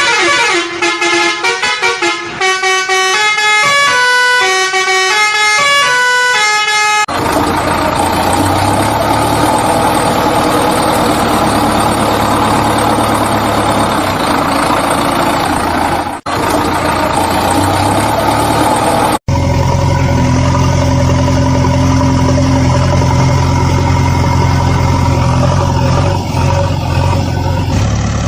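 A quick melody of short stepping notes for about the first seven seconds. Then a truck engine runs steadily with horn tones over it, broken by two short gaps partway through.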